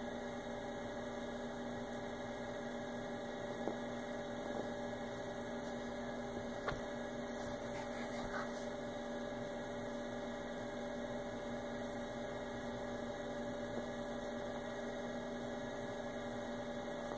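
Steady electrical hum made of several fixed tones at an even level, with a few faint taps over it.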